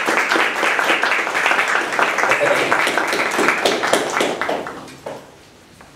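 Audience applauding, many hands clapping at once, dying away over the last couple of seconds.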